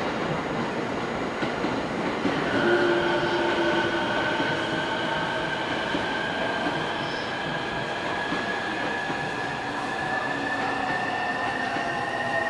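An approaching JR E231 series 1000 electric train running in: a high whine, from its inverter or its wheels, comes in about two seconds in and climbs slowly in pitch over the steady rumble of the train.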